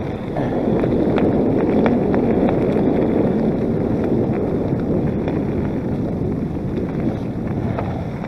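Wind buffeting the microphone while a mountain bike is ridden along a trail, with a steady rush of tyre noise and scattered clicks and rattles from the bike over rough ground.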